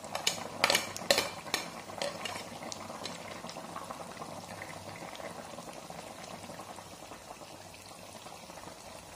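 Fish curry with sour fermented bamboo shoot bubbling at a steady simmer in a kadai. A metal spoon clicks and scrapes against the pan several times in the first three seconds as coriander is stirred in, then only the bubbling goes on.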